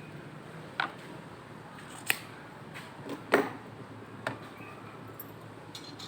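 Small hand tools working on an amplifier circuit board while rusted resistors are being removed: four sharp clicks about a second apart, the loudest a little past three seconds in.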